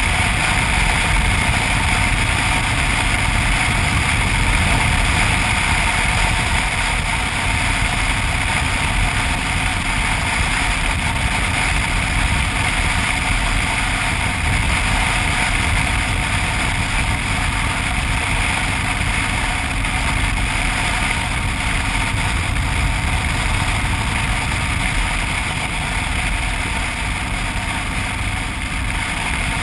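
Boss Hoss motorcycle's 8.2-litre (502 cubic inch) Chevrolet big-block V8 running at a steady cruise, with wind rushing over the microphone. No revving changes.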